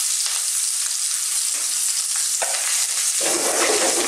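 Fresh curry leaves sizzling and popping in very hot corn oil, a steady loud hiss with scattered spits. About three seconds in, a spatula stirs through the pan, adding a rougher stirring noise over the sizzle.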